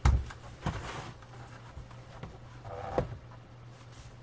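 An LCD panel with a sheet-metal back is set down on a workbench, giving a loud knock at the start and another under a second in. About three seconds in there is a short metallic clatter ending in a knock.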